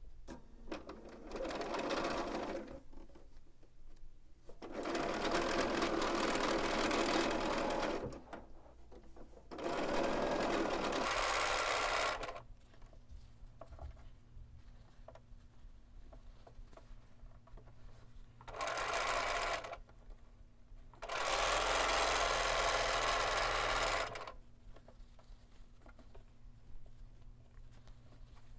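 Bernina B 770 Quilters Edition sewing machine stitching in five separate runs, each about one to three and a half seconds long, stopping and starting again between them.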